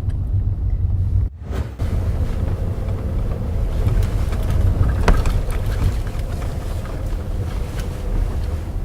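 Steady low road and tyre rumble inside a VW Polo Sedan on rough asphalt, with a short rubbery-plastic rattle and squeak about five seconds in, which the owner suspects comes from the automatic transmission mount.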